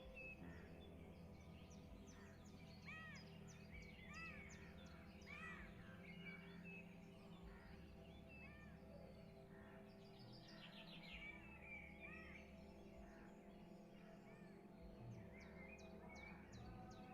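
Small birds chirping, with repeated arching whistled notes and quick runs of high chips, over soft steady background music.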